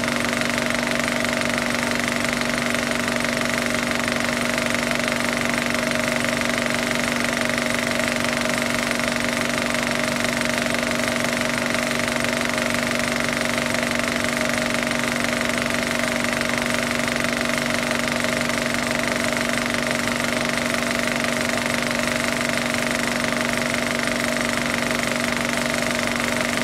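A steady, unchanging buzzing drone: a few held tones over an even hiss, with no breaks or rhythm.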